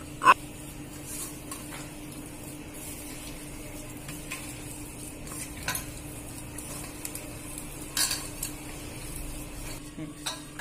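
A spoon mixing boiled rice with spices in a bowl, scraping, with sharp clinks against the bowl: a loud ringing one right at the start and a few more later. A faint steady hum runs underneath.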